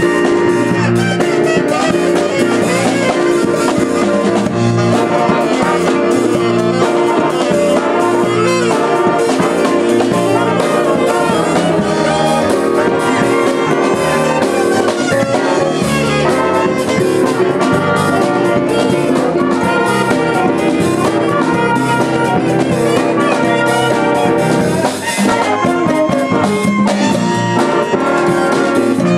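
Live band playing an up-tempo jazz-funk instrumental: a saxophone section over drum kit, bass guitar and electric guitar, with a brief break in the playing about 25 seconds in.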